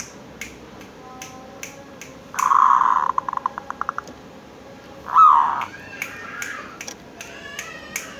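Zebra dove (perkutut) calling: a loud call, then a quick run of about ten short notes, and another loud call about five seconds in. Sharp clicks are scattered through it.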